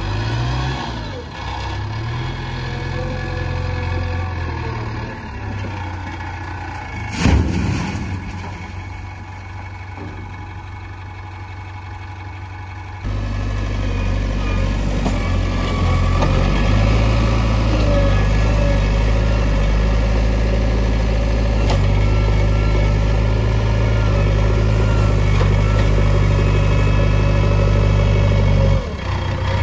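Diesel engine of a JCB backhoe loader running steadily. There is one sharp, loud knock about a quarter of the way in. Partway through, the engine suddenly becomes louder and heavier.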